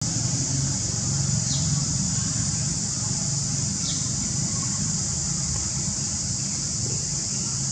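Steady outdoor background: a continuous high-pitched hiss over a low rumble, with two faint short falling chirps about a second and a half and four seconds in.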